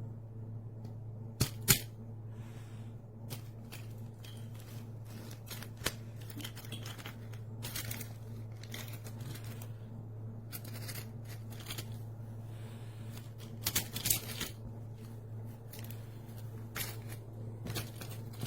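Handling noises: scattered clicks and rustles, loudest about one and a half seconds in and again around fourteen seconds, over a steady low hum.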